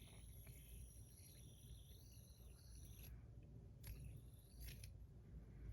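Faint, high-pitched whir of a fidget spinner's bearing spinning, which the spinner's owner says needs replacing. It stops about three seconds in, followed by a couple of faint clicks.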